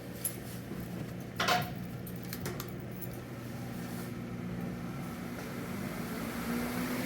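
Electric fan running after being switched on, a steady motor hum. A few clicks and a knock come in the first three seconds. Near the end the hum gets louder and a higher tone creeps up in pitch as the fan gathers speed.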